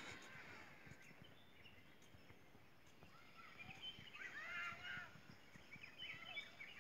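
Faint birds chirping in short, curved calls, clustering about halfway through and again near the end, over a quiet background hiss, with a sharp click at the very start.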